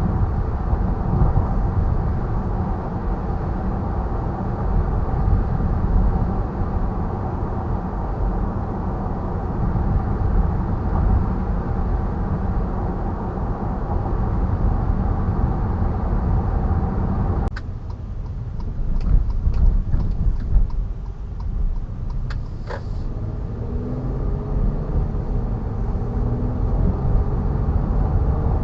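Car driving, heard through the dash cam's own microphone: a steady low rumble of road and engine noise. About two-thirds of the way through, the sound changes abruptly to a duller rumble with a run of faint clicks before the steady road noise resumes.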